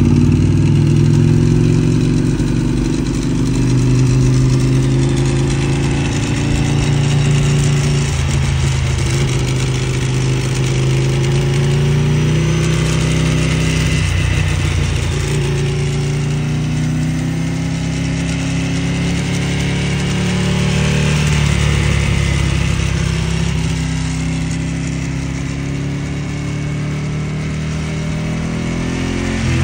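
Ducati 1098R's L-twin engine through a Termignoni 70 mm racing full exhaust, running at low road speed. The engine speed rises and falls several times as the throttle is opened and closed.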